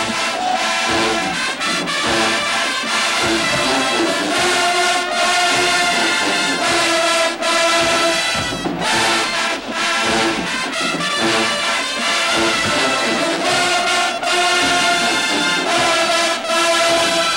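Large college marching band playing a loud, brass-heavy stand tune, with trombones and trumpets carrying held chords.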